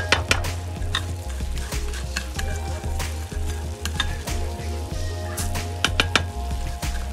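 Rice being added and stirred into a pot of boiling broth with vegetables: bubbling water with scattered clicks and taps of a utensil and grains against the pot.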